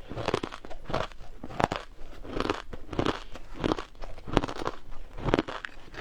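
Frozen matcha ice being bitten and chewed close to the microphone: crisp crunches, about eight of them at roughly one a second, each a cluster of sharp cracks as the ice breaks between the teeth.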